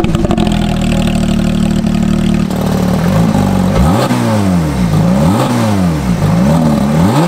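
2018 Porsche 911 GT3's naturally aspirated 4.0-litre flat-six, fitted with a Brooke Race Exhaust rear bypass system, heard from behind at the tailpipes. It holds steady revs for about two and a half seconds, then drops back and is blipped up and down about four times in quick succession.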